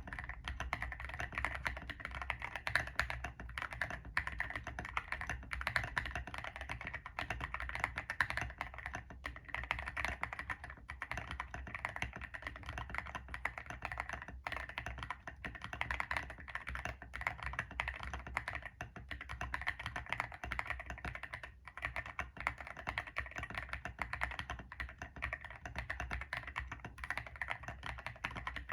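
Continuous typing on an ilovbee i61 mechanical keyboard with stock WS Morandi switches and MDA-profile keycaps: a dense, steady stream of keystroke clacks. The board is o-ring mounted, tape-modded and dampened with silicone and polyfill.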